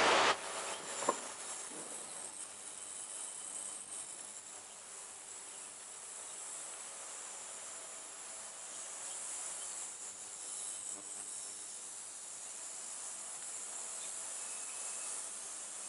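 Ultrasonic cleaning tank of a ceramic anilox roll washing machine running: a steady, fairly faint high-pitched hiss with a faint thin whine. There is a single click about a second in.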